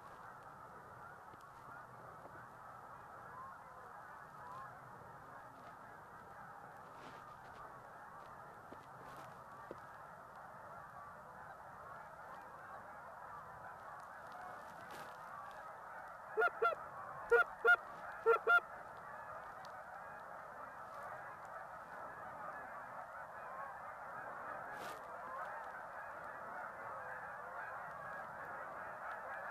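A large flock of geese calling overhead, a dense continuous chatter of overlapping honks that grows louder as the flock comes closer. Just past the middle, six loud, close honks come in three quick pairs.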